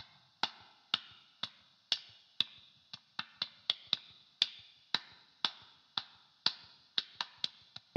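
A solo percussion track from a GarageBand composition: sharp clicking hits, each with a short ring, on a beat of about two a second. Extra off-beat hits come in around the middle and again near the end.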